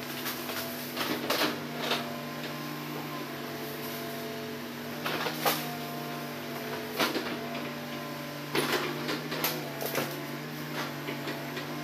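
Hitachi hydraulic excavator's diesel engine running with a steady hum, with scattered sharp clanks and knocks as the machine works and swings, several of them bunched together near the end.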